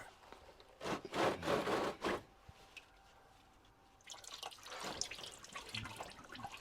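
A filter wrench working loose a stuck engine oil filter, with noisy handling about a second in, then engine oil dripping and trickling from the loosened filter from about four seconds in.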